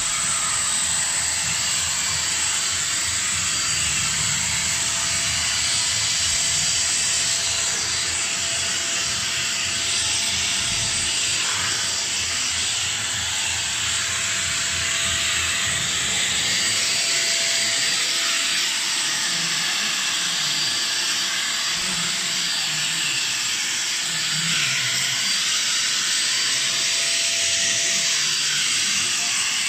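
Deerma DX700 vacuum cleaner running steadily as its floor nozzle is pushed over a tiled floor: a constant rushing hiss of air with a faint steady hum.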